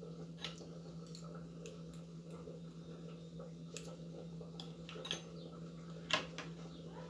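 Scattered faint clicks and ticks of thin wire and a cut aluminium can bottom being handled and fitted together by hand, over a steady low hum.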